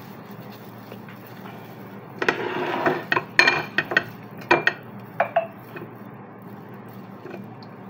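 Plastic-gloved hands handling a raw marinated whole chicken in a ceramic bowl: a short stretch of wet rustling about two seconds in, then a series of sharp clicks and knocks against the bowl.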